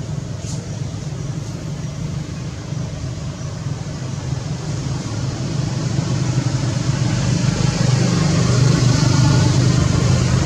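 A steady low motor rumble, growing louder over the last few seconds.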